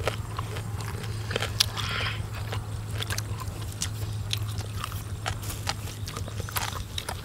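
Several people chewing and biting food close to the microphone: irregular wet mouth smacks and short clicks, over a steady low hum.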